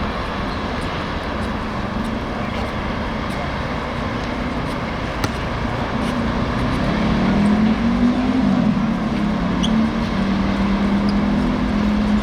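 Steady outdoor traffic noise. About halfway through, a low engine hum comes in, rises a little and then holds steady. There is one sharp click near the middle.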